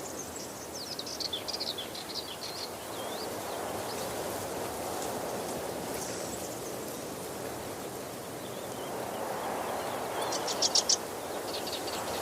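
Steady rushing of a waterfall, with small birds chirping over it: a run of quick, falling chirps in the first few seconds and a louder burst of five rapid chirps near the end.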